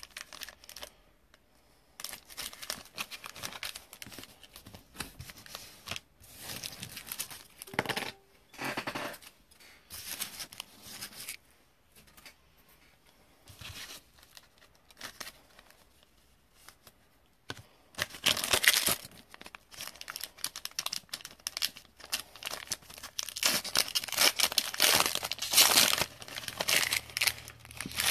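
Foil trading-card pack wrappers being torn open and crinkled by hand, in irregular bursts of crackling, loudest about eighteen seconds in and again near the end.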